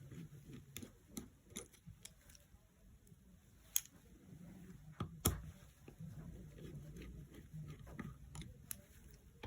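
Small metal tools clicking and tapping on the opened iPhone 7 as its tiny board screws are taken out and set down: scattered sharp clicks, the loudest about four and five seconds in, over a faint low hum.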